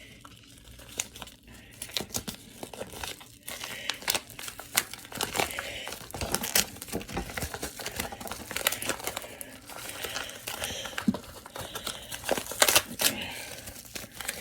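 Wrapper of a trading-card pack being crinkled and torn open by hand, a long run of irregular crackling and rustling.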